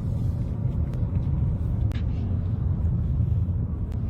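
A car driving, a steady low rumble with a few faint clicks.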